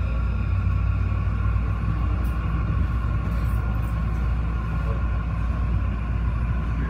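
Incheon Airport maglev train running along its elevated guideway, heard from inside the car: a steady low rumble with a steady whine of several high tones above it.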